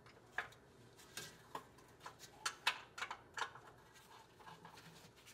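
Faint, irregular metallic clicks and ticks of a socket wrench undoing the torque converter access cover bolts under the engine.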